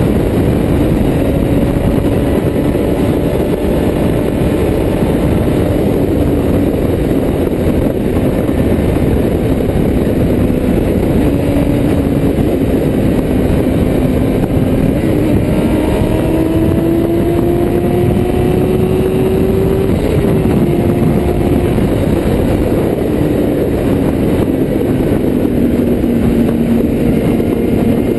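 1995 Kawasaki ZX-6R's inline-four engine pulling at highway speed under a heavy rush of wind noise. Its pitch climbs steadily through the middle, drops sharply about two-thirds of the way in at an upshift, then eases down near the end.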